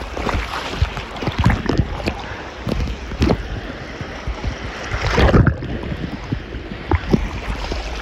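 Wind buffeting the microphone over rushing, splashing sea water, as on a small boat out at sea, with a louder rush of water about five seconds in.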